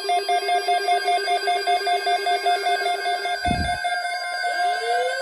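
Electronic emergency-alert tone, a rapidly pulsing two-pitch beep. About three and a half seconds in the lower pitch stops with a low thump, and near the end a tone slides up in pitch.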